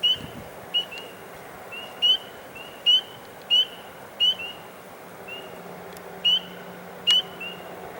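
Short, high, upward-slurred peeps from an unidentified pond creature, repeated roughly every second and overlapping from several callers, some loud and close, others fainter, with a brief lull just past the middle.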